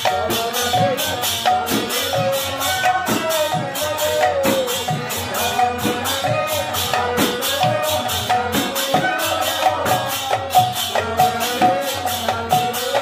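Kirtan music: a harmonium playing a melody over the strokes of two khol drums, with a fast, even high percussion beat keeping time throughout.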